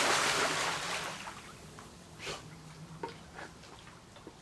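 Swimming-pool water splashing as a Labrador retriever plunges in, the splash dying away over about a second, followed by the small splashes and lapping of the dog paddling.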